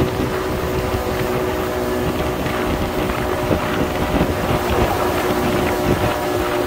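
Small boat's outboard motor running steadily under way, a constant hum under wind buffeting the microphone.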